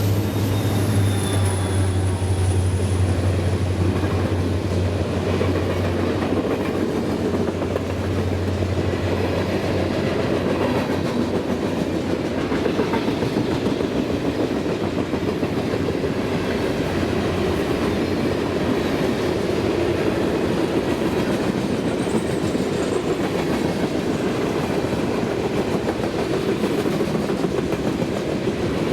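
Freight train cars rolling past on the rails, the wheels clicking steadily over the rail joints. A low, steady hum in the first few seconds fades away.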